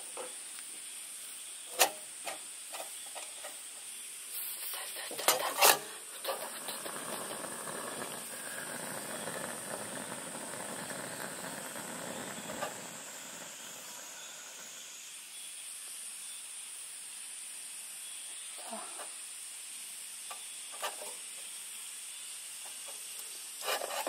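Small candle-style gas lantern on a gas canister being lit: sharp ignition clicks about five seconds in, then a soft, steady hiss of burning gas for about eight seconds that dies down as the flame is adjusted, with a few faint clicks of the adjuster later.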